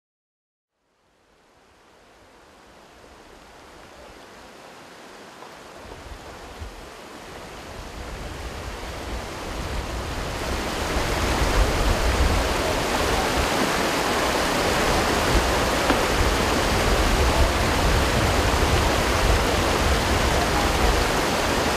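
Rushing floodwater: a continuous rush of fast-flowing water that fades in, grows louder through the first half, then holds steady.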